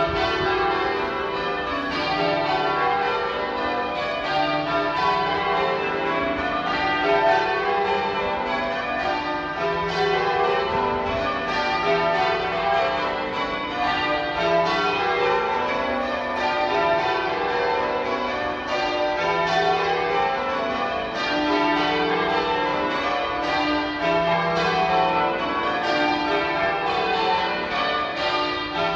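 Cathedral church bells being rung in changes: a continuous, even run of strikes from several bells of different pitches, one after another in a shifting order.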